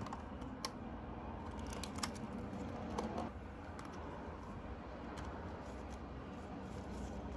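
Clear plastic packaging and a card chocolate box being handled: a few scattered light clicks and taps, with a short scrape about three seconds in as the box slides out, over a steady low hum.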